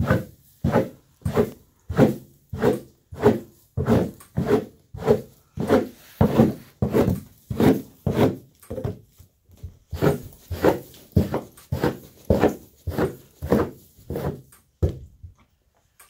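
A horse scratching an itch by rubbing itself against the wooden stall boards: a rasping rub repeated in a steady rhythm of about one and a half strokes a second, stopping about a second before the end.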